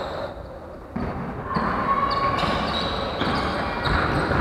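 Basketball bouncing on a wooden gym floor during play, echoing in a large hall.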